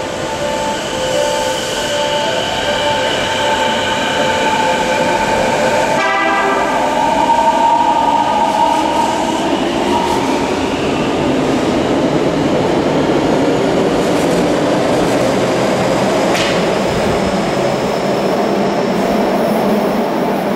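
Kobe Municipal Subway 1000 series electric train pulling out of an underground station. A steady whine holds for the first six seconds, then rises in pitch as the motors take power and the train accelerates. The cars keep running past with a broad rolling noise, and there is one sharp tick near the end.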